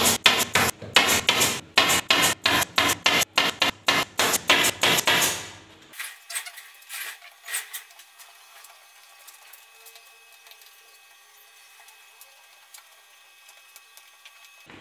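Pneumatic staple gun firing staples in quick succession, about three shots a second, fixing upholstery fabric to a wooden bed board. The stapling stops about five and a half seconds in, leaving faint rustling and clicks of fabric being handled.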